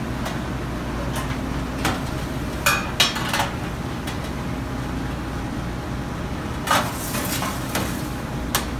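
Steel kitchen pans clanking and a few knocks as a resting pan with a wire rack is handled and a steak is set on a wooden cutting board, the loudest about three seconds in and near seven seconds. Under them runs the steady hum of a commercial kitchen's ventilation.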